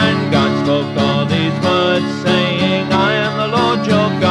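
Country-style song music led by plucked guitar.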